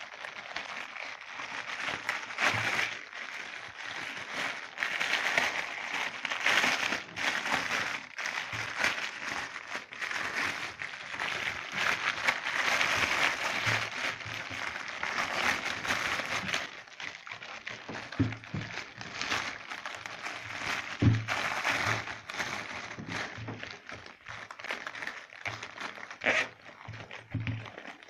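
Clear plastic packaging crinkling and rustling as it is handled and opened, with scattered sharp clicks and light low knocks from the bagged tools.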